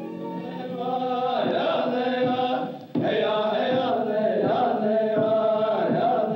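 Voices chanting together in the soundtrack music, holding long notes. The chant breaks off briefly about three seconds in, then carries on.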